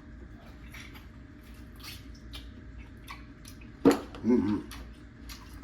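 Close-up mouth sounds of a person chewing a cheese-topped grilled oyster: soft wet clicks and smacks throughout, one loud smack just under four seconds in, followed by a short hummed "mm".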